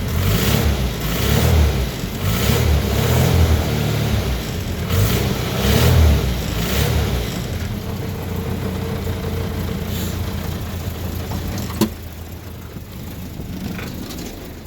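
Land Rover Series II's 2.25-litre four-cylinder petrol engine revved repeatedly in short blips, then settling to a steady idle about seven seconds in. There is a single click near the end.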